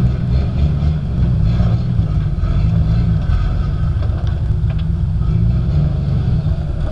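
Rock-crawler buggy's engine running low and steady under load as the buggy crawls slowly over boulders.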